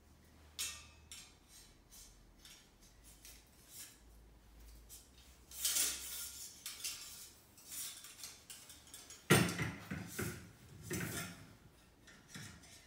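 Black metal wire document-tray frame and mesh trays clinking and rattling as they are handled and fitted together. The loudest knock and rattle comes about nine seconds in, as the metal frame meets the wooden desktop.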